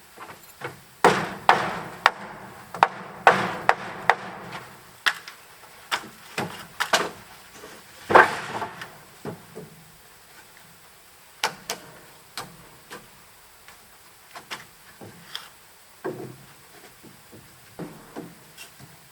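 Irregular wooden knocks and scraping, thickest in the first few seconds with a loud scrape about eight seconds in, then sparser clicks and taps.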